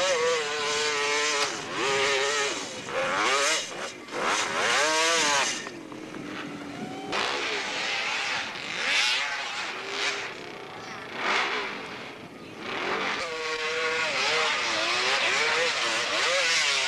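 Dirt bike engines revving hard and easing off in repeated surges while climbing a steep dirt hill, the pitch rising and falling with the throttle. Louder surges come near the start, about four seconds in and again near the end.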